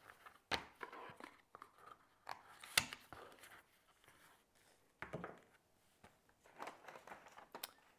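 Handling of a deck of game cards and their cardboard box: the cards tapped square and the box handled, giving scattered soft taps and rustles of card and cardboard, the sharpest tap about three seconds in.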